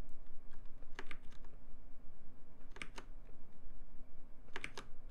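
Computer keyboard and mouse clicks in three quick clusters, about two seconds apart, over a faint steady low hum.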